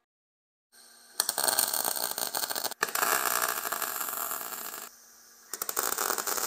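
MIG welder arc crackling as a spigot is welded onto a steel coolant pipe: a steady frying crackle for about three and a half seconds with one brief break, then a second run starting near the end.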